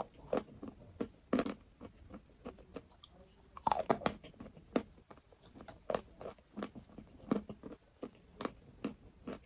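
Close-miked chewing of chalk: irregular crunches and wet mouth clicks, one or two a second, with a denser cluster of crunches about four seconds in.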